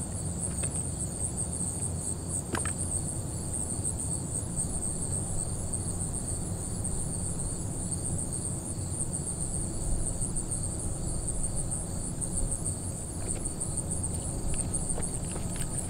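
A steady, high-pitched chorus of insects trilling in a fast, even pulse, over a low rumble.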